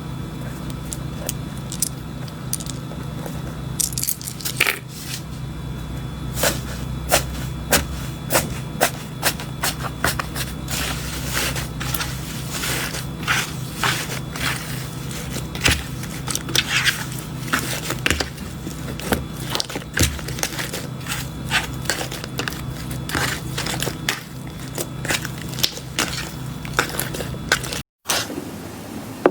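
Slime being squeezed and pressed by hand, giving irregular crackling and popping clicks.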